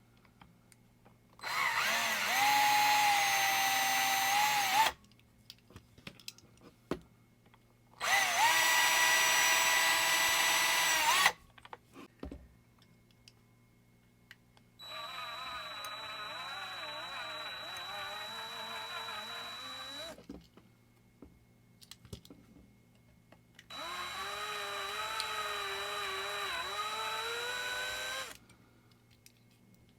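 Small power drill drilling out a diecast car's base rivets, run in four bursts of a few seconds each with short pauses between. The first two runs are louder with a steady pitch; the last two are quieter and their pitch wavers as the bit bites.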